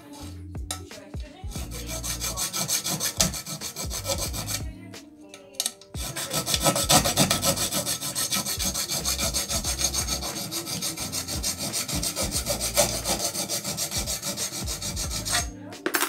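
Hand hacksaw cutting through a metal square tube clamped in a bench vise, in quick back-and-forth strokes. There is a short pause about five seconds in, then steady sawing until near the end.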